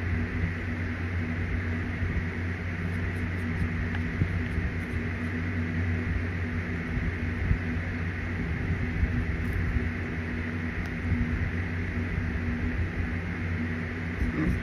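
Steady machine hum, a low drone with a fainter high whine, of the kind a running fan makes. A few faint clicks come through it as raw cornstarch is eaten from the can with a plastic spork.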